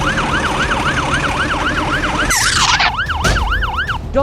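Emergency vehicle siren in a fast yelp, its pitch rising and falling about three times a second, with a falling whoosh a little past halfway.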